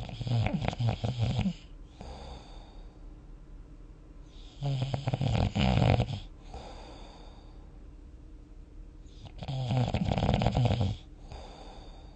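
Snoring from someone dozing at a kotatsu: three long snores, each about a second and a half and coming about every five seconds, with a softer breath out between them.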